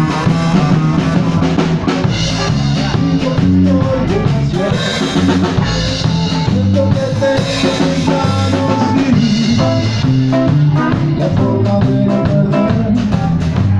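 Live rock band playing an instrumental passage: drum kit with a steady beat under electric bass lines.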